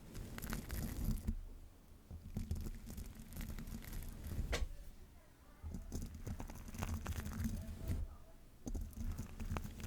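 Close-miked ASMR trigger sounds made right on a microphone: scratchy rubbing with fine crackles and a low handling rumble. They come in four spells of one to two seconds with short pauses between, and one sharp click about halfway through.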